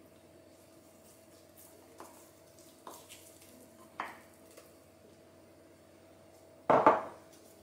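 A silicone spatula scraping honey from a glass measuring jug into a glass mixing bowl: a few soft scrapes and light taps on glass, then one louder double knock of hard kitchenware near the end.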